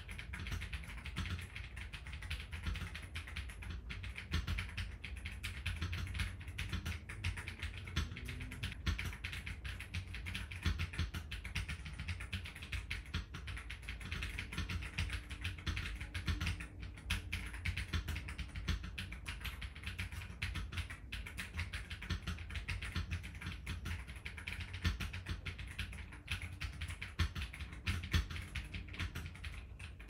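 Continuous fast typing on an Ajazz AK820 Pro mechanical keyboard with Akko Neon keycaps: a dense, uneven stream of keystrokes, with quiet background music under it.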